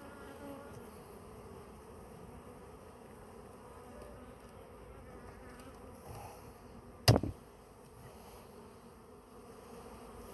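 Honeybees buzzing steadily around an opened hive, stirred up by the boxes being pried apart. A single sharp knock sounds about seven seconds in.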